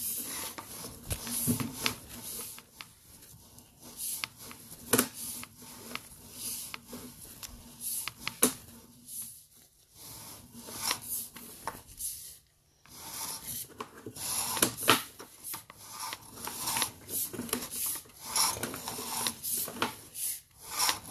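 Sewer inspection camera's push cable being pulled back out of the line, with irregular rubbing, scraping and clicking and two brief pauses, over a faint steady hum.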